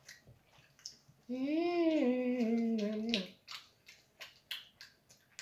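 A voice humming a drawn-out "mmm" for about two seconds, gliding slightly in pitch, with short clicks of chewing and mouth sounds from people eating pizza before and after it.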